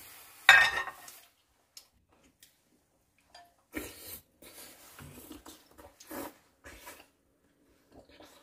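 Eating sounds of pumpkin porridge taken from a spoon: a loud slurp about half a second in, then several shorter, quieter slurps and mouth sounds.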